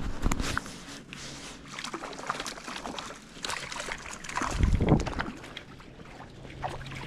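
Water splashing and sloshing close by in irregular bursts, with a heavier splash about four and a half seconds in.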